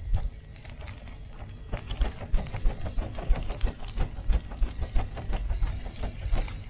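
Meat chops sizzling over a charcoal grill: an irregular crackle of small sharp pops over a low rumble.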